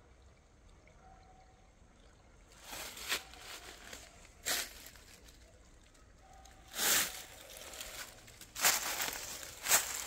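Slow footsteps crunching and rustling through dry fallen leaves. Irregular crunches start a couple of seconds in and come every second or two.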